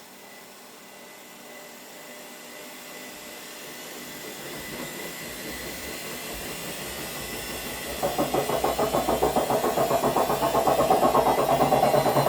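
Haier HW60-10636A washing machine running and building up speed, its sound growing steadily louder; about eight seconds in it turns abruptly louder into a rapid, even pulsing, like the drum spinning up fast.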